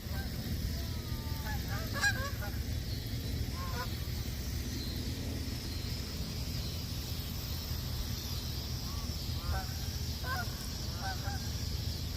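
Birds calling in scattered groups of short calls, a few at a time, over a steady low rumble.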